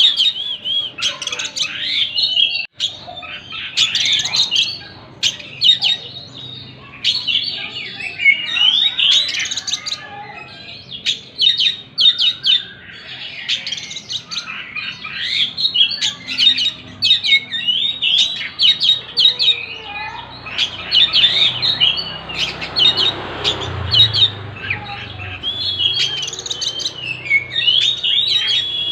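Oriental magpie-robin (kacer) singing continuously, a rapid, varied run of whistles, trills and chips. About two-thirds of the way through, a soft rushing noise with a low rumble rises under the song for a few seconds.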